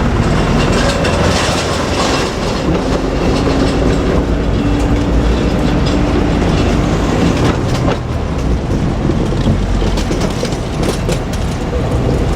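Two-car KiHa 47 diesel railcar set running, its engine drone rising slightly in pitch over the first several seconds, then wheels clicking over rail joints in the later seconds.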